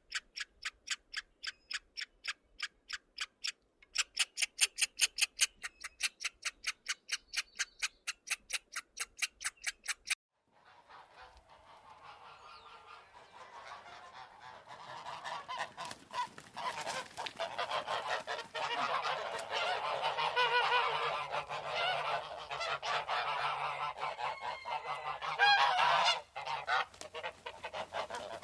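A rapid, even series of short high-pitched calls, about three a second, with a brief pause near four seconds in. The calls cut off abruptly about ten seconds in. Then a large flock of birds calls together in a dense, overlapping chorus that grows steadily louder.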